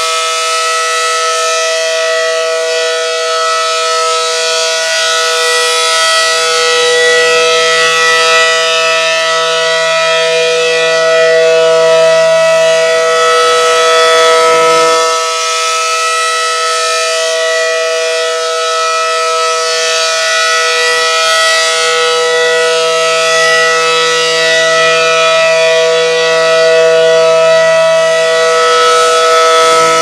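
ACA Allertor 125 rotating outdoor warning siren sounding a steady alert tone, loud. The pitch holds level while the loudness swells and fades about every 15 seconds as the horn sweeps round.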